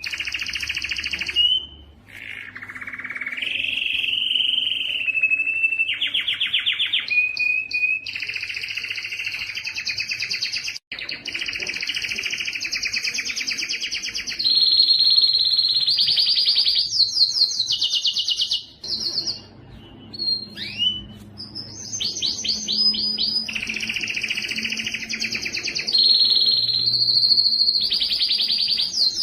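Male domestic canary singing a long, unbroken song: rapid trills and rolls that switch to a new phrase every few seconds, with steady high whistled notes held between them. About two-thirds through, a brief lull of short single chirps comes before the trilling resumes.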